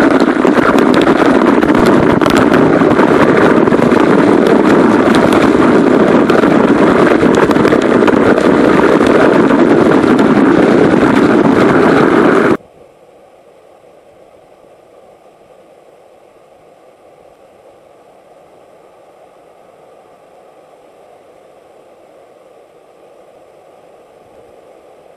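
Loud, steady rush of a waterfall pouring straight onto the camera, water pounding close on the lens. It cuts off abruptly about twelve seconds in, leaving a faint steady rush of falling water.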